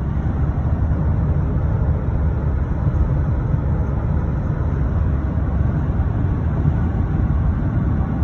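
Steady low rumble of a car driving, heard from inside the cabin, cutting off abruptly just after the end.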